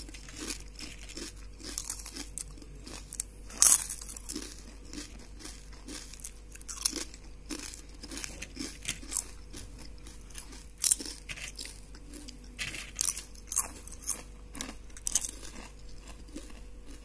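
Crispy homemade fried potato chips crunching as they are bitten and chewed: a string of sharp, irregular crunches with chewing between them.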